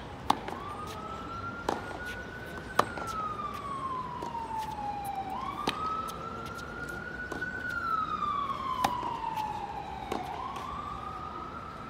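Tennis balls struck by rackets in a baseline rally: about six sharp hits a second or few apart, the loudest near the start. A siren wails behind them, its pitch slowly rising and falling.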